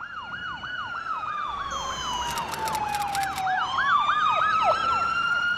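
Ambulance sirens: a fast yelp sweeping up and down about three to four times a second, together with a slower wail that falls, then jumps up and climbs again a little past halfway. The sound grows louder in the second half.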